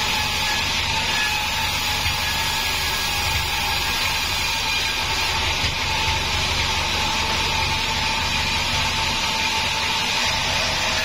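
Sawmill band saw running steadily as a long plank of reddish timber is fed through the blade and ripped lengthwise.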